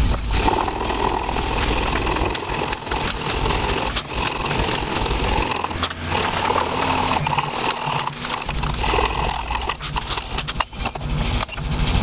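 Hand file scraping along the bevel of a steel knife blank clamped in a filing jig.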